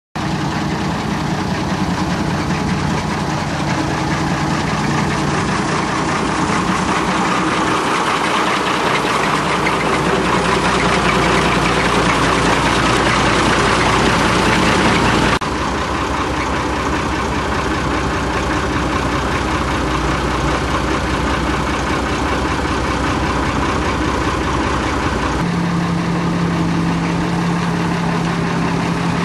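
A truck-mounted mobile crane's engine running steadily while it hoists a heavy engine column. Its note changes abruptly about halfway through and again a few seconds before the end.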